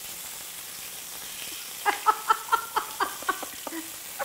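Chicken breast frying in a skillet: a steady faint sizzle, then from about two seconds in, quick crackling pops of spattering fat, several a second.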